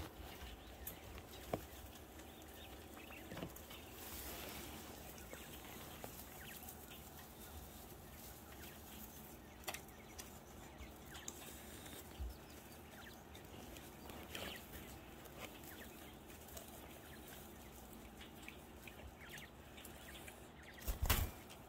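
Small flock of jumbo wild-type coturnix quail in a straw-bedded pen, with faint scattered clicks, rustles and soft calls. A brief loud bump near the end.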